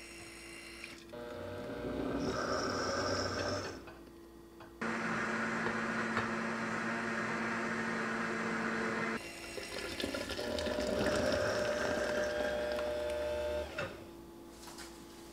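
Countertop nut-milk maker's motor whirring as it blends nuts and water, in several separate stretches cut apart by edits.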